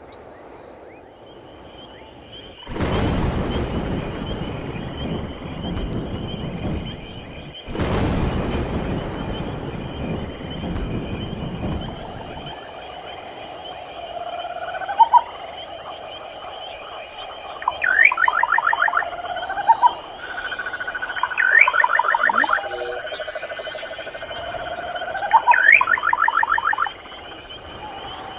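Night chorus: crickets trilling in a steady high-pitched drone that starts about a second in, with a faint regular tick above it. A rush of noise fills the first half for several seconds, and in the second half bird calls come every few seconds as short runs of rapid rising notes with lower whistles.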